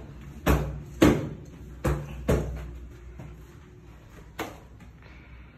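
A handful of short, sharp knocks and thumps, five in all, the loudest about a second in and the last one standing alone more than two seconds after the others.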